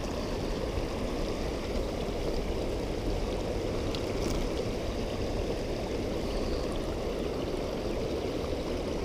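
Shallow river water running steadily over rocks.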